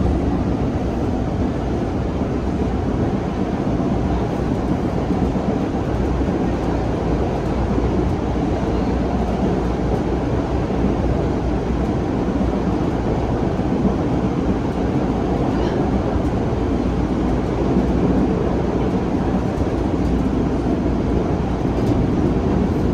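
Steady low rumble inside a moving MBTA Orange Line subway car: wheels running on the rails and the car's running gear, even in level throughout.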